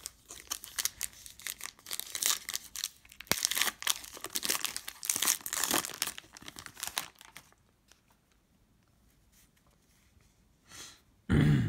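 Foil wrapper of a Panini Prizm football card pack being torn open and peeled back, a run of crackling rips and crinkles that stops about seven seconds in.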